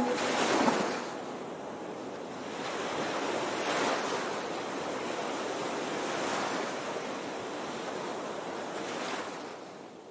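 Ocean surf washing in, a hiss that swells and ebbs about every three seconds, then fades out near the end.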